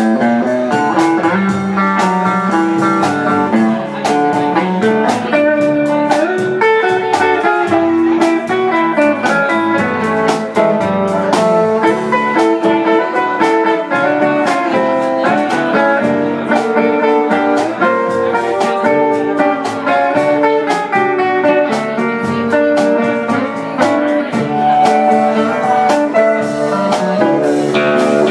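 Live honky-tonk band playing an instrumental break: electric guitars and pedal steel guitar over bass and drums, with no vocals.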